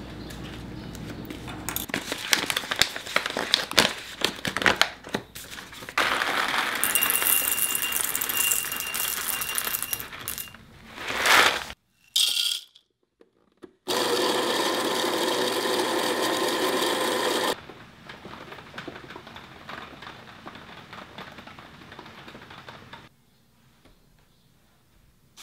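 Whole coffee beans clattering as they are poured out, then an electric burr grinder running steadily for a few seconds, grinding the beans, before it cuts off.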